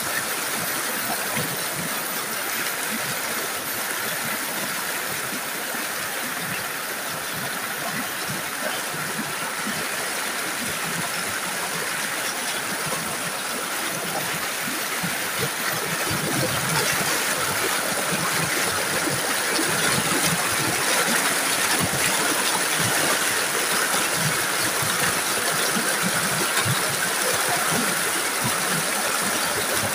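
A rocky stream's rapids rushing over and between boulders: a steady, dense rush of water that grows louder a little past halfway.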